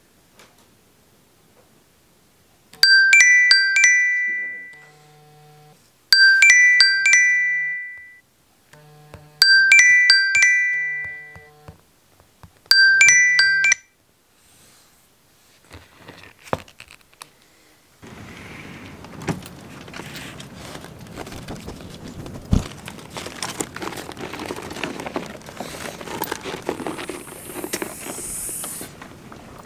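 Smartphone alarm tone playing the same short chiming tune four times in a row, then cut off as the phone is tapped. A steady, rough background noise with scattered clicks follows.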